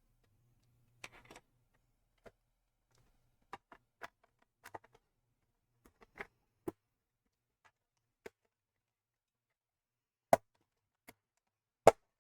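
Scattered small clicks and taps of a plastic laptop being handled on a bench, with two sharper, louder clacks near the end.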